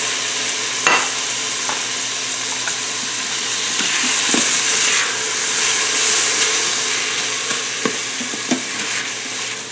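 Diced chicken, onion and garlic sizzling in an Instant Pot's stainless steel inner pot on sauté mode while stirred with a nylon spoon, a steady frying hiss that shows the pot is nice and hot. A few light knocks and scrapes of the spoon against the pot, about a second in and twice near the end.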